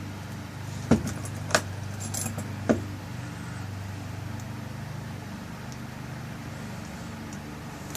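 Metal lock parts clicking and clinking as the tail piece is screwed back onto a rekeyed lock cylinder: four sharp clicks in the first three seconds, then only a steady low hum.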